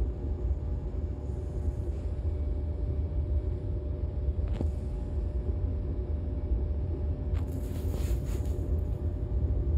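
Steady low rumble inside the passenger cabin of a DB Class 425 electric multiple unit. A faint click comes about halfway through, and a short hiss comes near the end.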